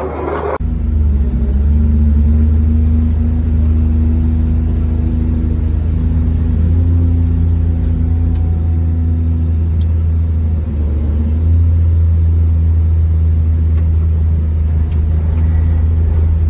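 Heavy construction machine's engine running steadily with a deep, low rumble.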